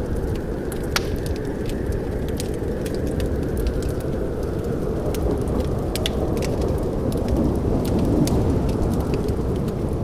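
Wood fire burning in a fireplace: a steady low rumble of flame with frequent sharp, irregular crackles and pops of burning wood.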